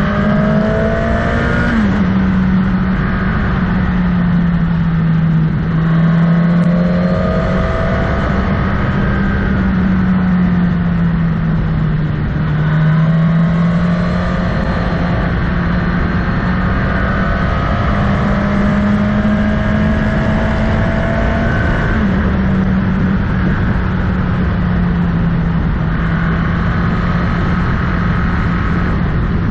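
Motorcycle engine running under way, its pitch rising and falling with the throttle, with sudden steps in pitch about two seconds in and again about twenty-two seconds in, over steady wind and road noise.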